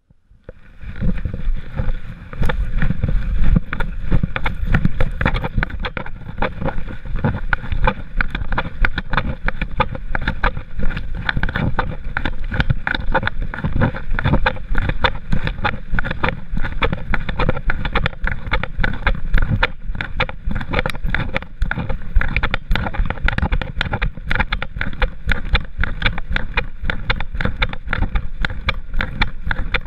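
Handling noise from a GoPro HERO3 in its case strapped to a walking dog's back: a steady rumble with many small clicks and knocks as the mount rubs and shifts with the dog's movement.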